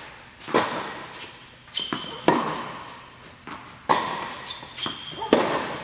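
Tennis ball struck by racquets in a baseline rally, four sharp hits about a second and a half apart, each echoing in a large indoor court hall. Lighter knocks of the ball bouncing and brief high squeaks, typical of shoes on the hard court, come between the hits.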